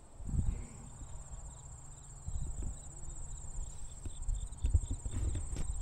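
Insects, crickets or similar, trilling steadily in the prairie grass as a high, finely pulsing drone. Under it run irregular low thumps of footsteps and camera handling.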